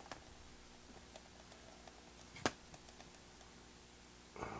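Faint clicks and light knocks from handling a tube tester's metal chassis, with one sharper click about two and a half seconds in and a short rustle near the end, over a faint steady hum.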